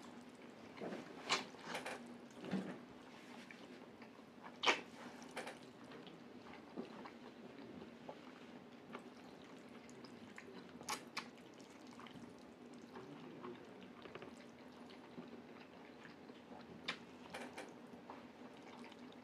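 A person slurping and chewing mouthfuls of jajangmyeon noodles: faint, scattered wet mouth smacks and slurps, the loudest about five seconds in. A faint steady low hum runs underneath.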